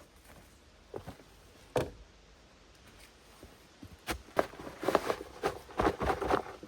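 Irregular knocks and taps: a couple of single knocks, then a quick, uneven run of louder ones over the last two and a half seconds.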